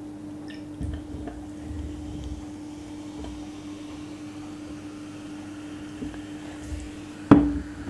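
Coca-Cola poured from a can over ice into a glass mug, a faint steady fizzing pour. Near the end, a single sharp knock.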